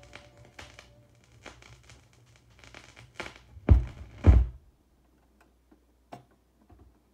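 Vinyl 45 single at the end of its side: the song fades out and the stylus clicks and crackles in the run-out groove. Two heavy low thumps come about halfway through as the tonearm is lifted off the record, then one more click near the end.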